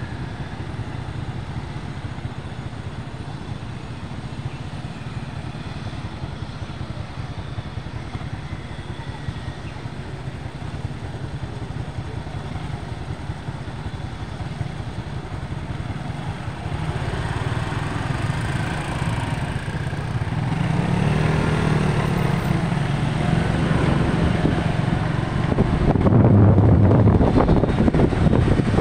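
City street traffic, mostly motorbike engines, as a steady rumble. A vehicle with a gliding engine pitch passes close about twenty seconds in, and the traffic grows louder near the end.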